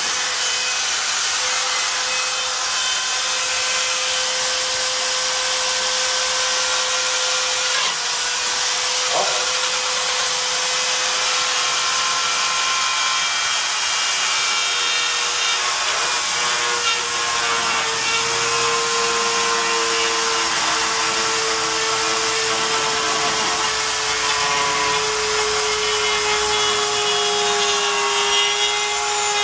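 Spiral-cut rotary tool running steadily at high speed, its bit routing a circle through drywall: a constant high motor whine over the gritty grinding of the cut, the pitch shifting slightly about two thirds of the way through as the load changes.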